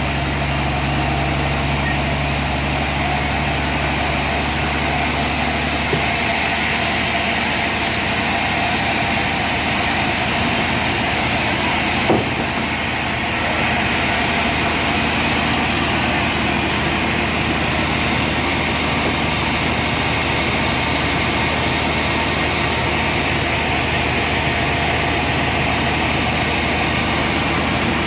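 Sawmill machinery running steadily with a constant engine-like hum; the low hum changes pitch about six seconds in, and there is a single sharp knock about twelve seconds in.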